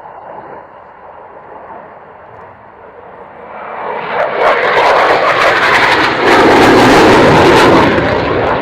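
Eurofighter Typhoon's two Eurojet EJ200 turbofans as the jet passes close. The engine noise swells about halfway through into a loud, crackling rumble, then eases slightly near the end.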